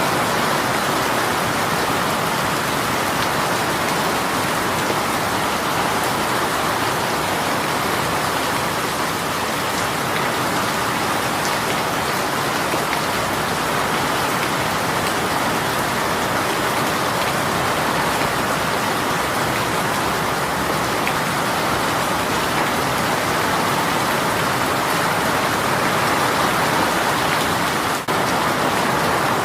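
Heavy rain shower falling steadily, a dense even patter of rain hitting surfaces, with a brief drop in level near the end.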